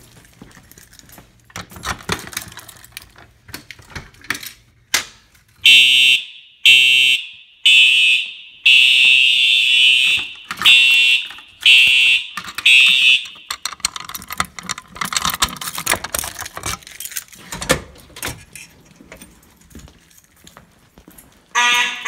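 Fire alarm horn sounding in loud, shrill blasts about a second apart, with one longer blast of about two seconds in the middle, then cutting off. Another alarm burst starts near the end, among scattered footsteps and handling clicks.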